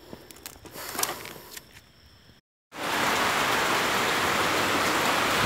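Faint rustling and a few clicks, then, after a cut about halfway in, heavy rain pouring down as a loud, steady hiss.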